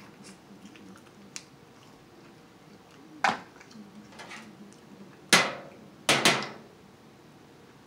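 King crab legs knocking against a metal sheet pan as they are handled: three sharp clacks with a short ring, about three, five and six seconds in.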